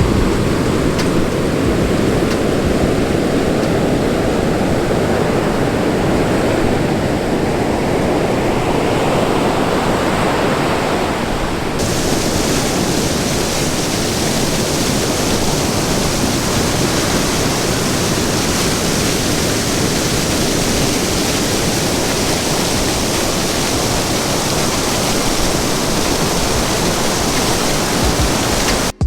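Alamere Falls waterfall pouring in a steady rush of water. About twelve seconds in the rush turns brighter and hissier.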